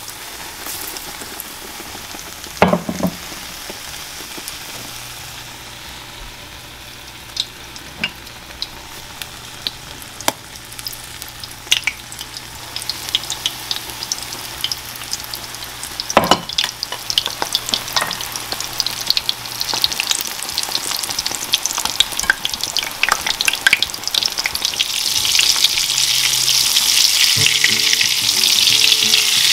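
Egg-battered dried fish frying in hot oil in a pan: a steady sizzle that swells louder in the last few seconds, with scattered sharp clicks.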